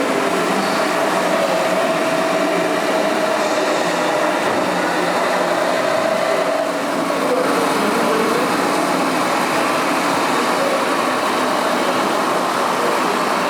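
Radio-controlled model trucks running: electric motors and gearboxes whirring with a steady, wavering whine over a dense, even background din.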